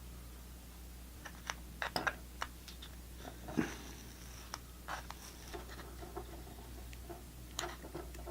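Light clicks, taps and scraping of small plastic and metal parts being handled by hand as an AWOW HDMI mini PC stick is taken apart. The strokes are scattered and irregular, with a short rubbing scrape about a third of the way in.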